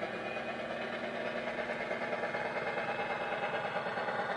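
Model Class 57 diesel locomotive's ESU sound decoder playing a diesel engine running at a steady speed through a small EM1 speaker, getting louder near the end as the loco draws closer.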